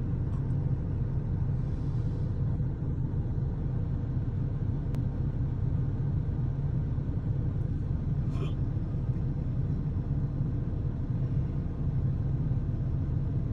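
A car idling, heard from inside its cabin as a steady low rumble.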